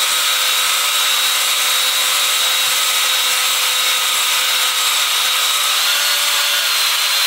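A cordless drill spins a brush-type cylinder hone inside an engine cylinder bore, finishing the bore. The drill motor gives a steady whine over the scraping of the abrasive on the cylinder wall. The whine rises slightly in pitch about six seconds in.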